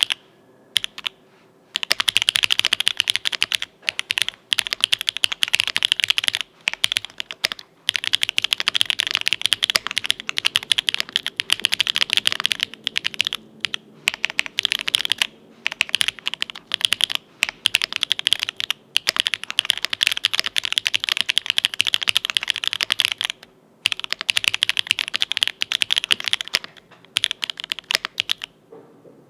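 Mechanical keyboard with lubed Owlab Tungsten linear switches (nylon housings, POM stems), an aluminium plate and GMK keycaps being typed on quickly and steadily. Brief pauses in the typing come every few seconds.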